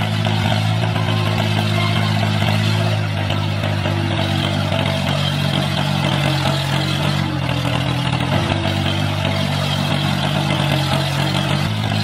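Engine-like running sound for a miniature tractor pulling a cultivator through sand: a steady low hum with a hiss above it, its pitch shifting slightly about eight seconds in.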